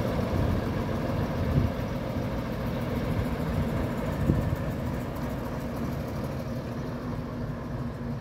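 Leyland Clydesdale tanker lorry's Leyland 401 diesel engine running steadily as the lorry pulls slowly away, gradually fading, with two brief thumps about one and a half and four seconds in.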